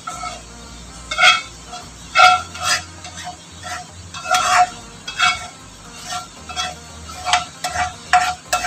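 Spatula scraping and knocking against a frying pan, about a dozen short strokes with a brief ringing clink, as cooked shredded fish is scraped out onto a plate.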